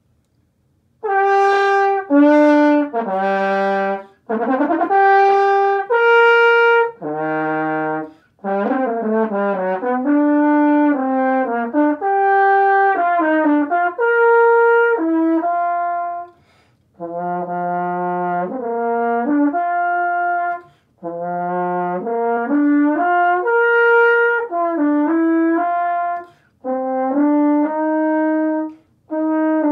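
Solo French horn starting about a second in and playing a melodic passage of sustained and moving notes, in phrases broken by brief pauses for breath.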